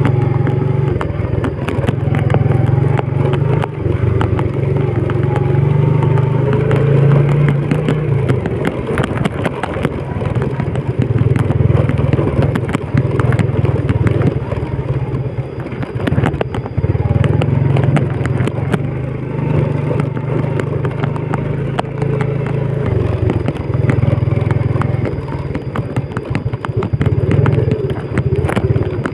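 An old Yamaha Vega's single-cylinder four-stroke engine running under way on a rough dirt track. The engine note rises, falls and eases off several times with the throttle, and frequent clattering knocks come from the bike over the bumps.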